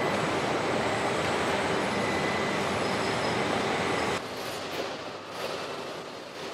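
Steady machinery noise of a robotic car-body assembly line, a dense hiss and rumble with a faint high whine. It drops sharply in level about four seconds in.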